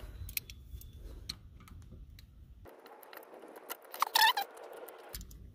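Light metallic clicks and clinks of an Allen key being handled at a car's brake rotor retaining screw, then one short high squeak near the end.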